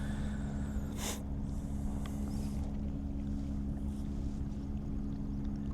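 Steady low engine hum, with a short swish about a second in from a spinning rod being cast.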